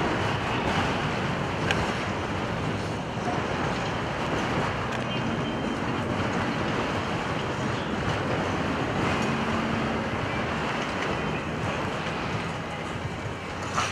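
Steady drone of two Stearman biplanes' radial engines flying past in formation, mixed with strong wind buffeting the microphone.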